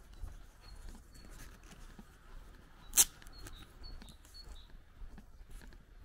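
Small birds chirping in short, high, repeated notes over soft footsteps on a grass path. About three seconds in comes a single sharp click, much louder than anything else.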